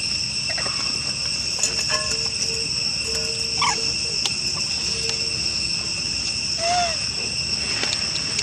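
Steady high-pitched chorus of insects, an unbroken drone that runs throughout. A few short chirping calls rise over it, one about halfway through and one near the end.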